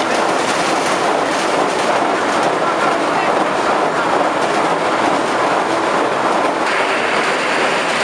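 Marrone chestnuts pouring down into a sheet-metal hopper, a dense continuous rattle and clatter of nuts striking metal and each other. The sharper edge of the clatter eases a little near the end.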